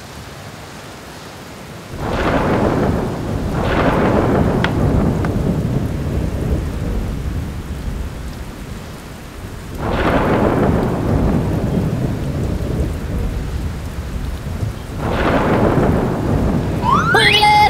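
Thunderstorm: heavy rain with four rolls of thunder, about two, four, ten and fifteen seconds in, each starting sharply and fading into a long rumble.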